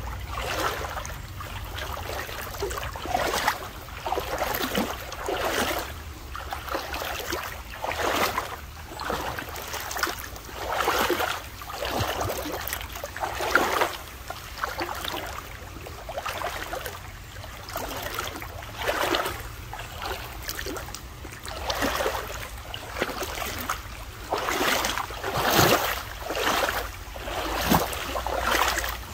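Footsteps wading through shallow creek water, each step a swishing splash, coming in an uneven rhythm about every one to two seconds.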